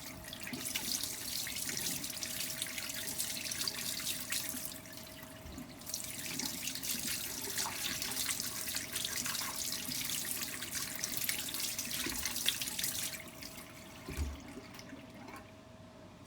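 Tap water running into a sink while the parts of an UltraBreathe breathing trainer are rinsed. The flow stops for about a second some five seconds in, starts again, and is shut off near the end, followed by a few light knocks. A faint steady hum runs underneath.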